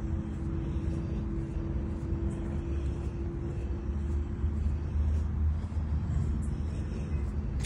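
Low rumble of distant road traffic, with a steady droning engine hum that fades out a little past halfway.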